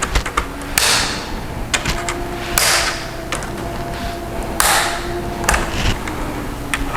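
Plastic clicks and snaps as a Dell Latitude E5450 laptop keyboard is pried up out of its retaining clips. Many small sharp clicks run throughout, with three louder, longer snaps about two seconds apart.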